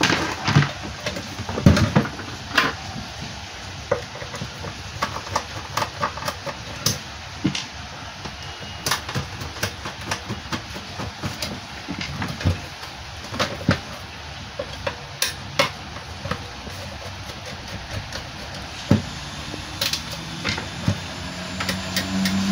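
Irregular knocks, clicks and clatter of sheet-metal solar charge controller cases being picked up, turned over and set down on a wooden bench among cables.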